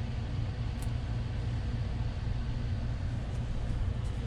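Steady low engine and road rumble inside a moving RV cruising on the highway.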